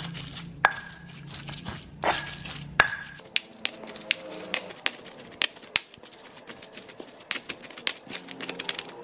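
Stone pestle knocking and grinding against a stone mortar (ulekan and cobek) as chilies, shallots, garlic and spices are worked into a paste. Sharp knocks with a short ring come a few at a time at first, then faster and more regular from about three seconds in.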